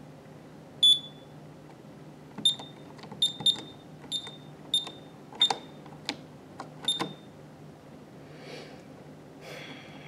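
Honeywell/Ademco Vista alarm keypad beeping at each key press: eight short high beeps at an uneven typing pace, with a few plain button clicks near the end of the run. A faint rustle follows.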